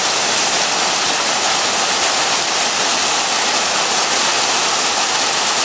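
Hail and heavy rain pelting the ground in a hailstorm: a steady, even hiss with no single impacts standing out.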